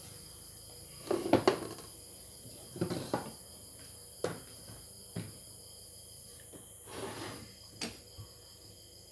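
A handful of separate knocks and clacks of kitchen things being handled on a wooden table, the loudest a short cluster about a second in. Near the end a kitchen knife cuts into a tomato on a round wooden chopping block.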